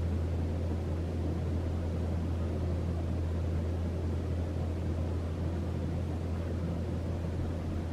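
Harbor Breeze Mazon DC-motor ceiling fan running steadily: a constant low hum with an even rush of air from the blades.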